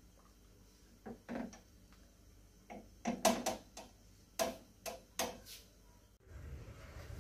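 Metal ladle clinking and knocking against the sides of a steel cooking pot while stirring thick milk and grated carrot, a scattered run of sharp clinks about a second in and again from about three to five and a half seconds in. Near the end a steady low rumble starts.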